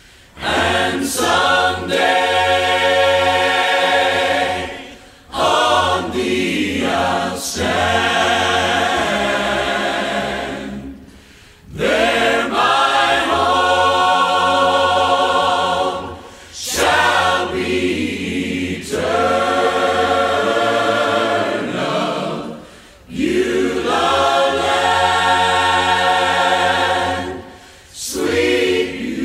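A choir singing in long, slow phrases of about four to six seconds each, with brief breaks between them.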